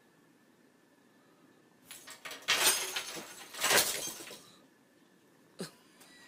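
A small decorated tabletop Christmas tree knocked off a side table by a cat, crashing and clattering with its ornaments: two loud crashes about a second apart, then a single sharp click near the end.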